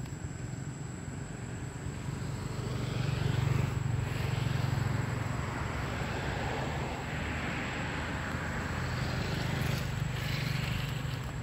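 Low, steady motor rumble that swells twice and fades back, with a thin, steady high whine throughout.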